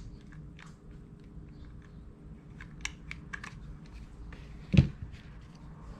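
Light crackling and small clicks of dry reindeer moss being pressed and handled as it is glued onto a birdhouse roof, with one sharp knock about three-quarters of the way through.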